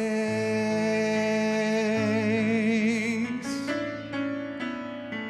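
A singer holds a long note with vibrato over piano chords; the voice ends about three seconds in and the piano plays on alone.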